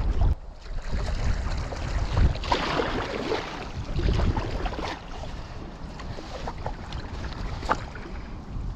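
Stand-up paddle strokes splashing and sloshing water around an inflatable paddleboard, with wind buffeting the microphone. The splashing is loudest about two and a half seconds in, with scattered light knocks and ticks throughout.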